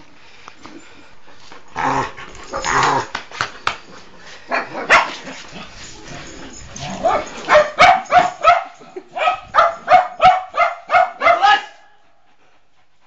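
A dog barks in a quick, even run of about a dozen barks, roughly three a second, that stops suddenly near the end. Rough scuffling sounds come before it as a pit bull tugs on a rag toy.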